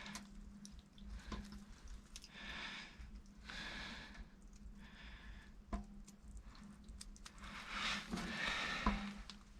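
Quiet handling noises: a few soft rustling swishes and small clicks over a faint steady low hum.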